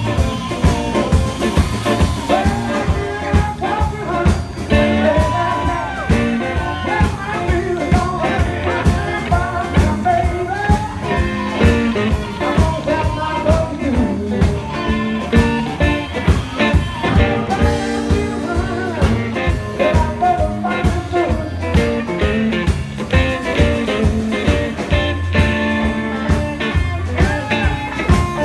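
Blues band playing with electric guitar and drums keeping a steady beat, and a voice singing over it.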